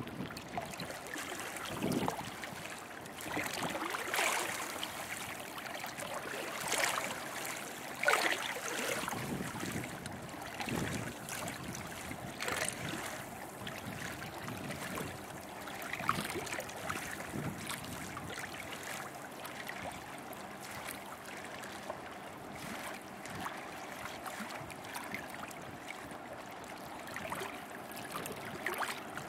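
River water lapping and splashing irregularly against the shore, with a faint steady low drone underneath from the passing lake freighter.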